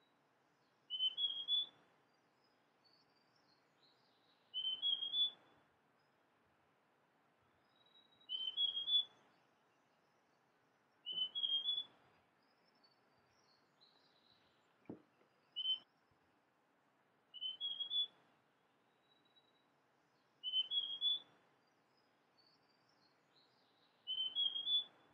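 Large niltava (Niltava grandis) singing: short phrases of two or three quick whistled notes, repeated about every three to four seconds. Fainter high chirps sound between the phrases, and there is a single sharp click about two-thirds of the way through.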